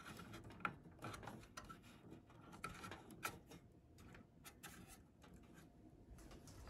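Faint scattered clicks and rubbing of plastic as a CPU cooler's push-pin fastener knob is handled and twisted to latch the heat sink in place.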